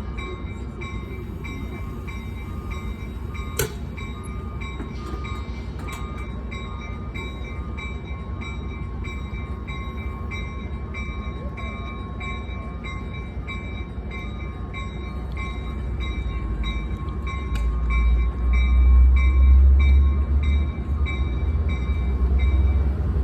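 Amtrak passenger train departing a station: a steady diesel rumble that swells to its loudest about three-quarters of the way through as the train pulls away, with a bell ringing over and over and one sharp click early on.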